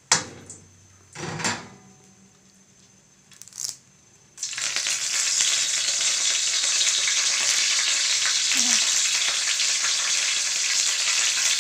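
A few utensil clatters against a wok, then about four seconds in curry leaves hit hot oil with whole spices and break into a loud, steady sizzle and crackle.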